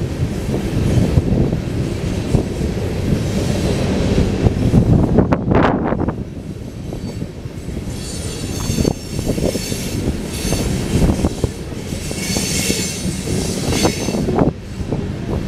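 Union Pacific freight trains, coal cars and double-stack intermodal cars, rolling past: a steady low rumble of steel wheels on rail with scattered clunks. High-pitched wheel squeal comes in about halfway through and comes and goes over the following seconds.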